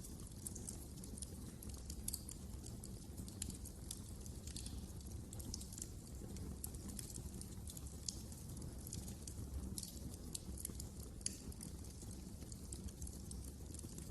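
Wood fire burning in a fireplace, crackling with frequent small irregular snaps and pops over a low steady rumble of the flames.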